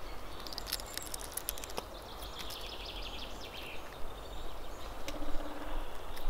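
Eggshell crackling in small sharp clicks as a hard-boiled egg is peeled by hand, most of the clicks in the first couple of seconds, over a quiet outdoor background. The shell is hard to peel.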